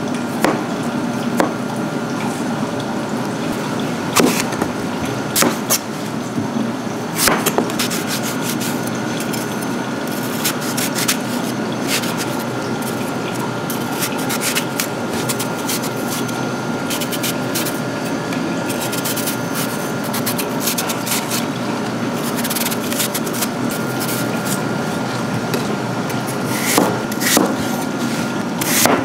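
Kitchen work sounds: a steady rushing noise, with scattered clicks and knocks of utensils and dishes and a faint high hum from about ten seconds in until near the end.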